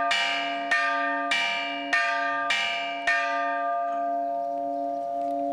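A single church bell rung by hand from a rope, tolling for a funeral. It is struck six times about every 0.6 s, then the strokes stop about three seconds in and the bell hums on.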